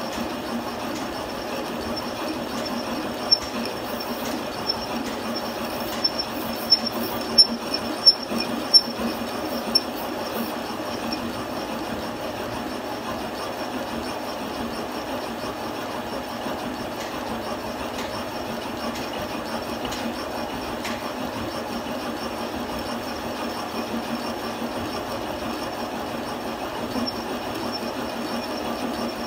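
Metal lathe running a thread tap as a makeshift hob, the tap cutting worm-wheel teeth into a steel gear blank that it turns: a steady metal-on-metal grinding with a faint high whine. A run of sharp ticks comes between about 3 and 10 seconds in, roughly every 0.7 s toward the end of the run.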